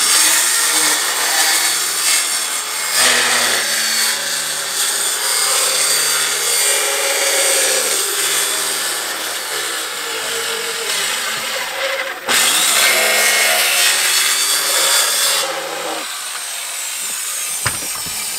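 Handheld electric circular saw running and cutting through a plywood panel, its motor note shifting under load. It stops briefly about twelve seconds in, starts again, then quietens near the end as the cut is finished.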